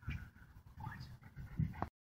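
A dog whining faintly in a few short rising whimpers over a low rumble on the microphone, cutting off abruptly near the end.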